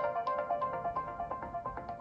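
Nokia 808 PureView ringtone playing: a fast melody of short, quickly decaying notes, fading out.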